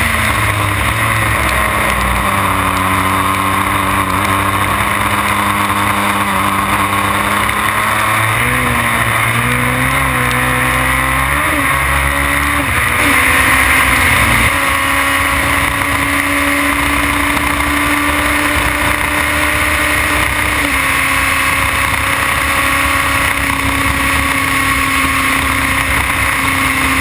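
Onboard sound of a Formula BMW single-seater's 1.2-litre four-cylinder engine at racing revs, with several shifts and pitch changes through the middle and a steady, high-revving run near the end, over a constant rush of wind.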